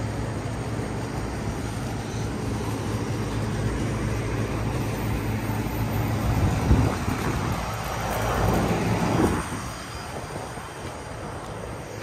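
Outdoor central air-conditioner condensing units running in cooling mode: a steady low compressor hum under the rushing air of the condenser fan. The fan noise swells louder for a few seconds past the middle, then the whole sound drops off and is quieter near the end.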